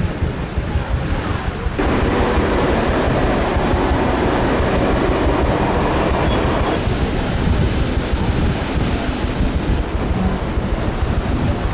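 Rush of water along a moving steam paddle boat, with wind buffeting the microphone. The rushing grows louder from about two seconds in until about seven seconds.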